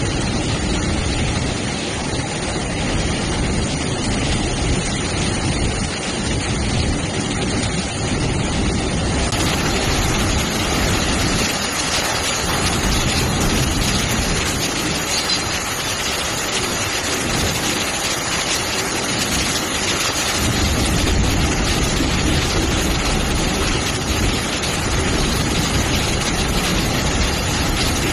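Freight train of open wagons running through floodwater covering the track: a steady loud rushing of water thrown up by the wheels mixed with the rumble of the wagons. About nine seconds in the sound abruptly turns brighter and hissier as a different recording of the same scene begins.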